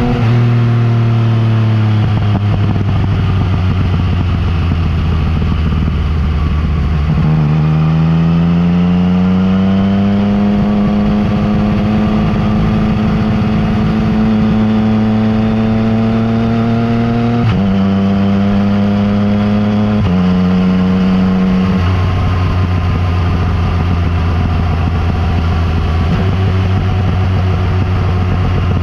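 Yamaha MT-09 Tracer's inline three-cylinder engine running through an Akrapovic exhaust while riding. The engine note sinks at first, climbs and holds steady, then drops in sudden steps three times, like gear changes, before climbing again near the end.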